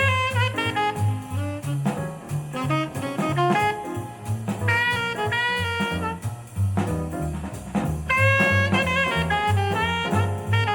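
Jazz playing back through JBL 4307 studio monitors: a horn melody over steady bass notes and drums.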